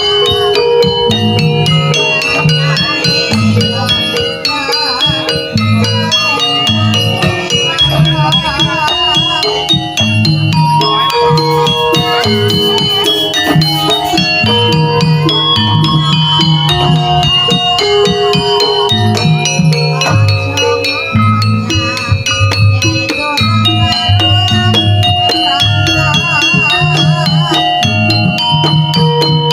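Javanese jaranan music from an ensemble: a low drum beats a repeating pattern under sustained pitched tones, with a wavering melodic line over it.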